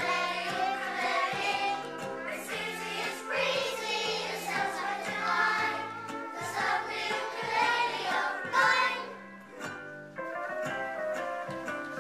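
A class of young children singing a song together over instrumental accompaniment. The singing stops about ten seconds in, and the accompaniment carries on alone.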